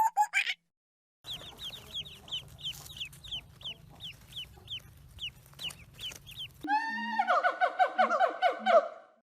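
Chicken sounds: a run of short, high, downward-sliding peeps, about two a second, over a low hum, then a rapid, pulsing clucking call that fades out near the end.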